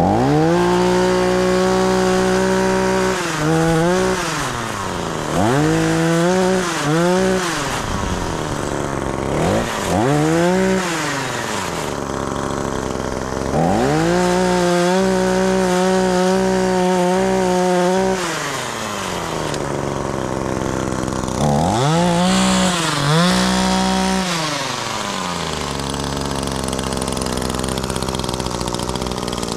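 Gas chainsaw engine revved up to full speed and let fall back to idle again and again, held at full speed for about four seconds midway, then idling near the end.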